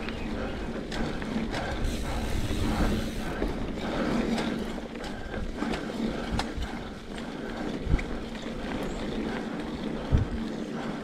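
Mountain bike ridden over a dirt singletrack: knobby tyres rolling on packed dirt with a steady rumble, the bike rattling and clicking over the rough ground, and a few sharp knocks as it hits bumps.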